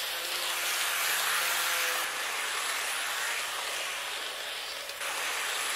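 N gauge model of a Nagano Electric Railway 1000 series 'Yukemuri' train running along floor-laid track: the steady whirr of its small motor and the wheels on the rails. A faint low hum is in the first two seconds, and the sound dips briefly about five seconds in.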